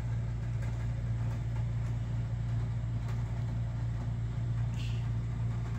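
Steady low hum, like a fan or appliance running, with a few faint clicks and a brief soft rustle about five seconds in.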